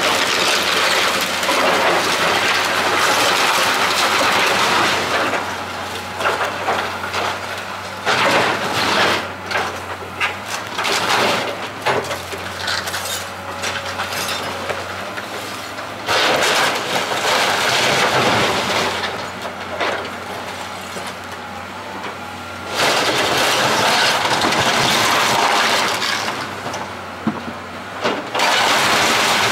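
Excavator demolishing a wood-framed building: timber, roofing and siding cracking, splintering and crashing down in several heavy loud stretches, over the steady hum of the machine's engine.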